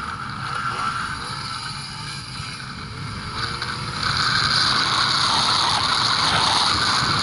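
Ski-Doo Mach Z 1000 SDI two-stroke snowmobile pulling away and running across snow, getting louder about four seconds in as it picks up speed.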